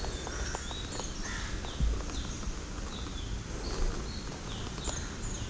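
Cloth rubbing over a motorcycle's plastic fairing and windscreen, with a few short handling knocks, one a little stronger about two seconds in. Birds chirp over it, many short, quickly falling high notes.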